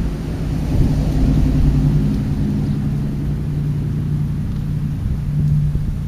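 A motor engine running with a steady low hum, swelling about a second in and easing slightly toward the end.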